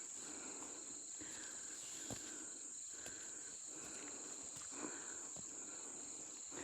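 Insects chirring steadily in a single unbroken high-pitched drone, with a few faint soft knocks.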